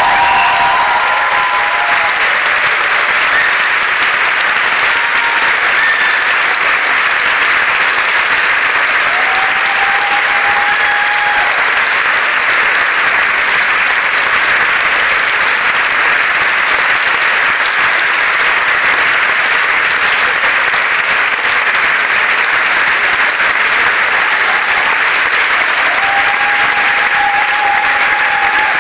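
Large theatre audience applauding steadily. The last notes of the music die away in the first second.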